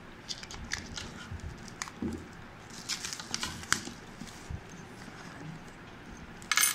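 Plastic bags, papers and a cardboard phone box being handled and unpacked: scattered crinkling and sharp clicks, with a short, louder rustle near the end.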